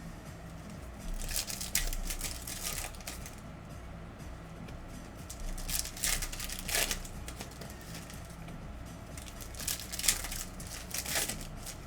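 Foil trading-card pack wrappers crinkling and tearing open, with cards being handled, in three bursts of rustling.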